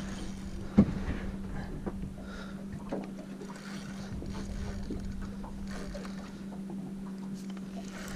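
Small boat sitting on the water, with faint water and hull sounds over a steady low hum. One sharp knock about a second in is the loudest moment.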